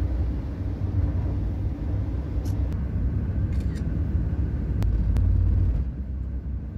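Steady low road rumble inside a moving car's cabin at highway speed, with a few light clicks. The rumble falls away near the end.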